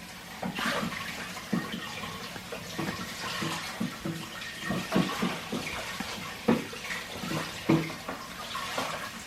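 Kitchen tap running while Savoy cabbage leaves are washed under it, with water splashing off the leaves and a few short knocks.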